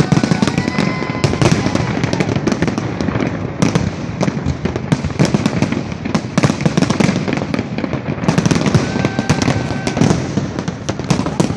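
Fireworks display: a dense, rapid string of bangs and crackling. A few thin whistling tones come near the start and again near the end.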